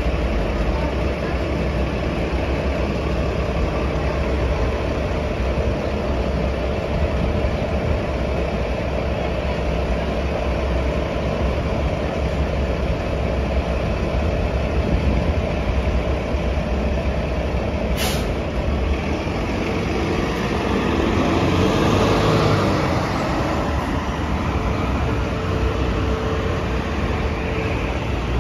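Articulated city bus's diesel engine idling with a steady low rumble, over street traffic. About two-thirds of the way through, the air brakes give a short sharp hiss as they release. The engine then swells as the bus pulls away.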